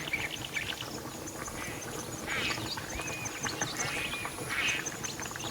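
Several short animal calls, duck-like quacks, a few times over a faint steady background.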